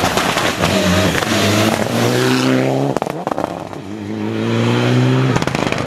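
Mitsubishi Lancer Evolution rally car's turbocharged four-cylinder engine accelerating hard, its pitch rising. It drops sharply with a burst of crackles about three seconds in, rises again, and lifts off with more crackles near the end.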